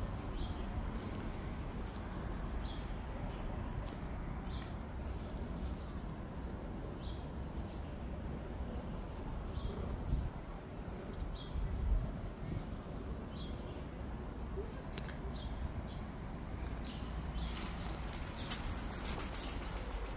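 Street ambience: a steady low rumble of distant traffic, with a small bird giving short, faint chirps every second or two. Near the end comes a burst of hissy rustling.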